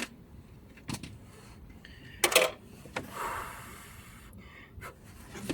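Small clicks and knocks from handling a soldering iron and wires at a soldering job, the loudest a quick cluster about two and a half seconds in, followed by a short soft hiss.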